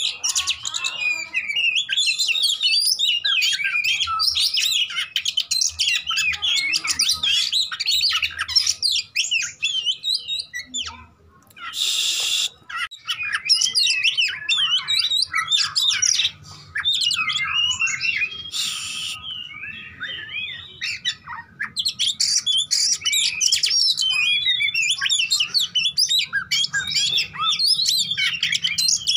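Caged male oriental magpie-robin (kacer) singing a long, fast, varied fighting song of rapid whistles and chatters. The song is broken by a short pause and two brief harsh rasping bursts around the middle, then runs on densely to the end.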